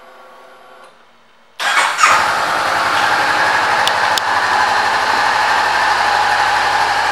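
A 2018 Honda CB500F's parallel-twin engine is started on the electric starter about one and a half seconds in, catches almost at once and settles into a steady idle.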